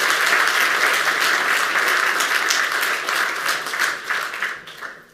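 Audience applauding in a large hall, dying away near the end.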